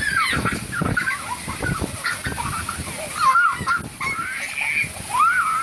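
Two children shrieking and laughing in high, sliding squeals, with storm wind gusting and rumbling on the microphone.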